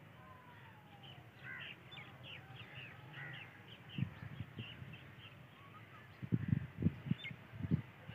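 A bird calling in a quick run of short, repeated calls, about three a second, for the first few seconds. In the second half come irregular low thumps, the loudest sound here.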